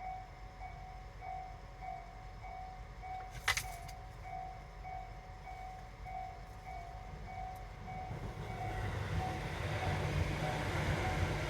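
Japanese railway level-crossing warning bell ringing in a steady repeating beat, about one and a half strokes a second. A sharp click comes about three and a half seconds in. From about eight seconds in, the rumble of an approaching train grows louder beneath the bell.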